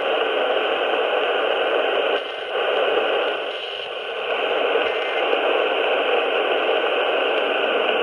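Steady hiss and static from an AM radio receiver tuned to 1160 kHz, with brief dips about two and four seconds in.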